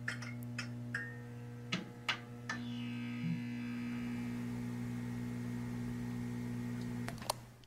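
Steady low electrical hum with a stack of overtones, with a few sharp clicks over it in the first couple of seconds and one more near the end. It cuts off suddenly.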